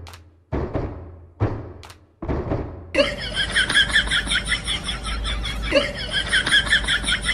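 Three sudden booming hits in the first few seconds, then a harsh, raspy laughter sound effect: a rapid, pulsing cackle of many quick 'ha' bursts, breaking off briefly near the end and starting again.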